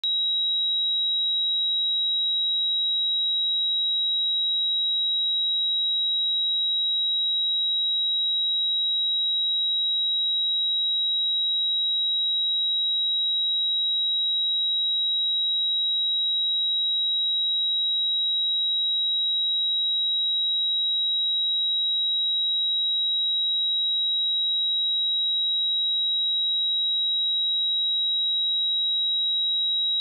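A pure 3843 Hz sine-wave test tone, a single steady high-pitched whistle-like note that holds without change in pitch or loudness.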